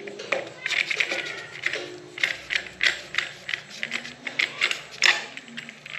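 Irregular metallic clicks and rattles as a fitting is worked by hand onto a brush cutter's aluminium shaft tube.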